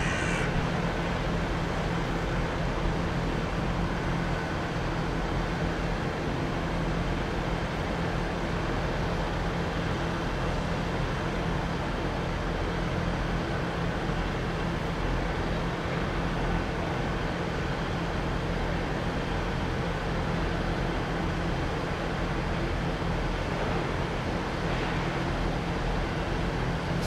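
Class 165 Networker Turbo diesel multiple unit running steadily on its underfloor diesel engines as the two-car train comes in over the station pointwork, with a constant low engine hum.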